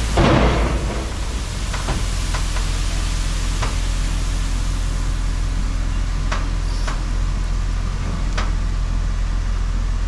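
Farm vehicle's engine running steadily, a heavy low drone under an even hiss, with a brief louder rush in the first second and a few faint clicks.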